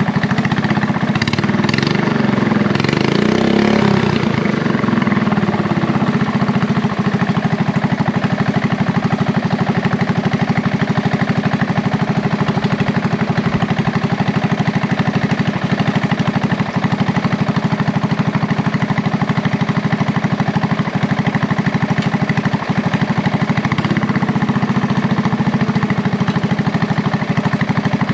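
Briggs & Stratton small engine of a home-built race mower running, with a livelier, changing note in the first few seconds before it settles to a steady speed.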